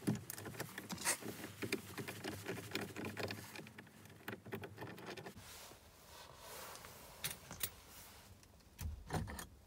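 Metallic clicking and rattling of a T55 Torx driver turning out the steering wheel's centre bolt on a VW Mk7, busiest for the first few seconds, then a few scattered clicks and knocks near the end.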